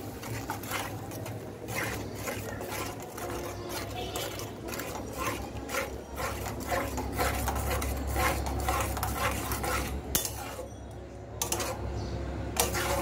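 Metal spatula scraping and stirring a thick mustard-paste masala against the sides and bottom of a metal pan, in many quick, irregular strokes, as the spiced paste is sautéed with a splash of water. A low steady hum runs underneath.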